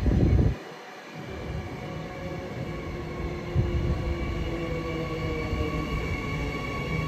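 Electric suburban train pulling away, its traction motors whining in several tones that slowly rise in pitch over a low rolling rumble. A brief loud low buffet at the very start.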